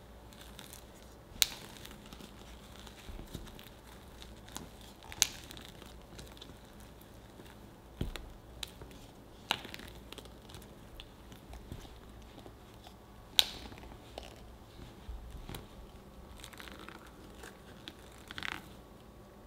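Wooden spatula kneading sticky, freshly cooked glutinous rice (mochi) dough in a glass bowl: soft sticky scraping and pulling sounds, broken by a few sharp knocks of the spatula against the glass.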